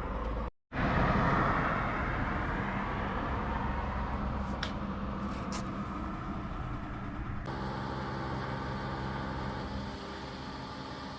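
Car driving on the road: steady engine hum and tyre and road noise. The sound drops out for a moment about half a second in and changes abruptly about seven and a half seconds in, where the recording is cut.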